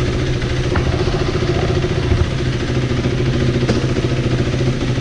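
KTM 390 Duke's single-cylinder engine idling steadily, with two light clicks.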